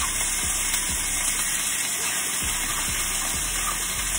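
Shredded cooked chicken sizzling steadily as it fries in olive oil in a hot skillet.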